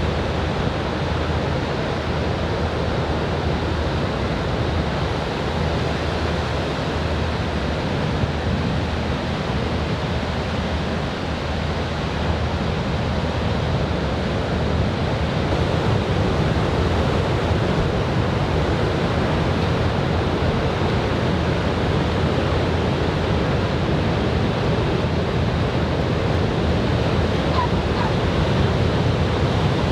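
Ocean surf from a typhoon swell breaking and washing on a sandy beach: a steady, unbroken wash of wave noise that swells a little louder in the second half.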